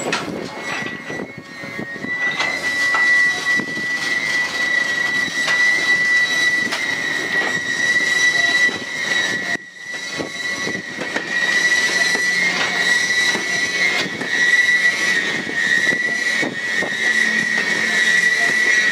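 Freight train of tank cars rolling slowly past, its wheels squealing in a steady high-pitched tone over the rumble and clicking of wheels on the rails.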